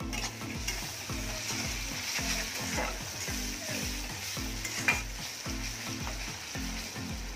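Sliced onions, capsicum and green chillies sizzling in oil in an aluminium kadai while a metal spatula stirs them, scraping and knocking against the pan, with one sharper knock about five seconds in.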